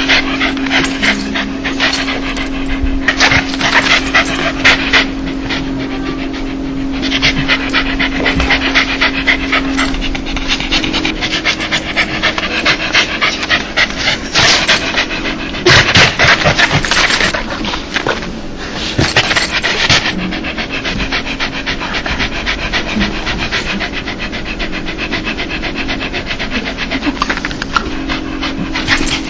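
Dog panting fast: a long run of quick, breathy huffs that comes in louder and softer stretches. This is the open-mouthed panting often called a dog's laugh, made when a dog is happy and excited.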